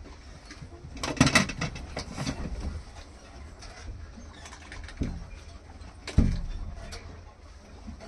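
Water splashing in a small pit as something thrashes below the surface, with several sudden splashes and knocks, the loudest about six seconds in.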